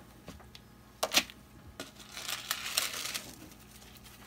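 A metal ball chain being picked up and handled: two sharp clicks about a second in, then about a second of rattling and crinkling.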